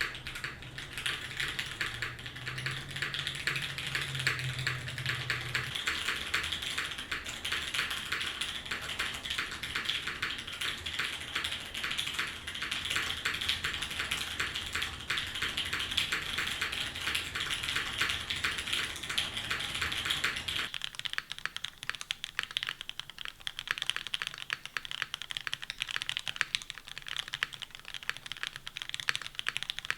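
Steady fast typing on a custom mechanical keyboard with lubed OP Black switches, a carbon fiber plate and GMK keycaps: a dense run of keystroke clacks. A faint low hum underneath stops about two-thirds of the way through while the typing goes on.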